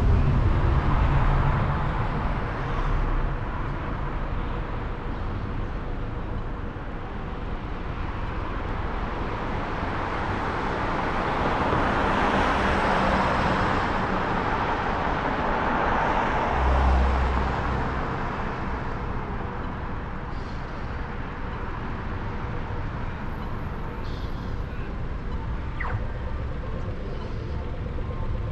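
Road traffic passing through an intersection: a steady rumble of vehicles, with cars swelling louder as they go by about halfway through.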